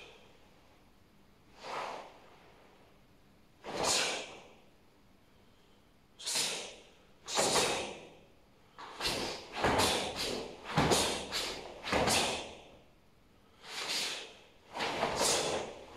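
A karateka's sharp, forceful exhalations through the mouth and nose, one with each technique of the Seisan kata. They come a second or two apart, with a quick run of about six near the middle.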